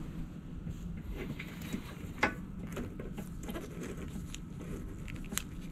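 Faint clicks and scrapes of hand tools and fingers working at the fuel line and its clamp on a small mower engine, with a sharper click about two seconds in and another near the end, over a low steady hum.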